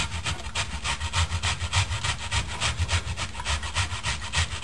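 Cauliflower being grated by hand on a flat metal grater: a rasping scrape repeated in an even rhythm, about four to five strokes a second.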